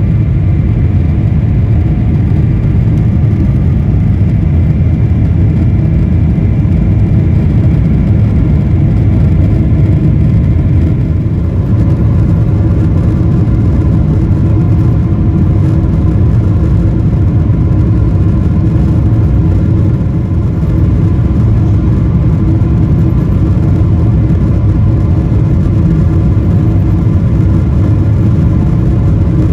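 Boeing 777-300ER cabin noise from its General Electric GE90-115B jet engines: a loud, steady low rumble with several steady whining tones, which shift about eleven seconds in as the engine setting changes.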